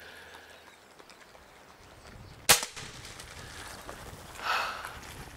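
Umarex AirSaber pre-charged air rifle firing an arrow: one sharp crack about two and a half seconds in. A shorter, softer burst of noise follows about two seconds later.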